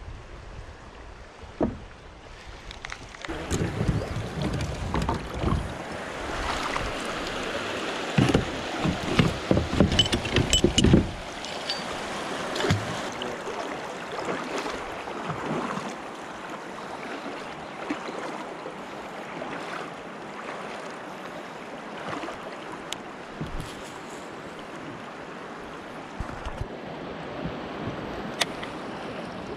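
River current rushing and lapping around a kayak. From about three to eleven seconds in there is a louder, uneven stretch of low rumbling and splashing, followed by a steadier rush of water with a few small clicks.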